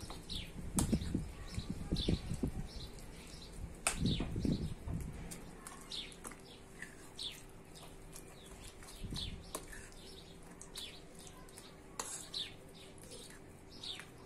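Small birds chirping over and over in short, falling high chirps. Beneath them a metal spoon stirs and scrapes a wet chicken cutlet mixture in a ceramic bowl, with a few sharp clinks of spoon on bowl.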